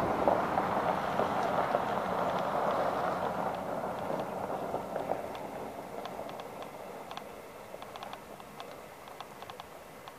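American Quarter Horse gelding walking on soft dirt: light hoof steps and small clicks of tack. A steady rushing noise is loudest at the start and fades away over the first half.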